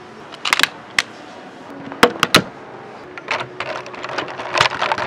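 Hard plastic parts of a Giant Saver Rescue Engine transforming robot toy clicking and snapping as a blue piece is folded and locked onto the robot: a few sharp separate clicks, then a quicker run of clicks and rattling near the end.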